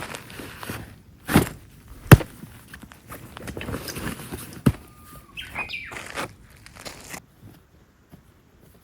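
Handling and movement noises: rustling with a few irregular sharp knocks, the loudest about two seconds in. A brief whistling, chirp-like sound comes a little past the middle, then it goes quiet for the last second or so.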